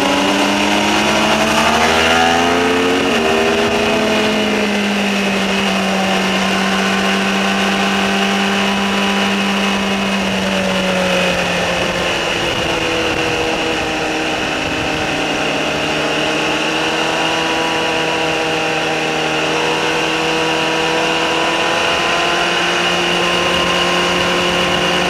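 Sport motorcycle engine at track speed, heard from on board through wind rush: revs climb over the first two seconds and fall sharply just after, hold steady through a long stretch, dip again about halfway, then build slowly towards the end.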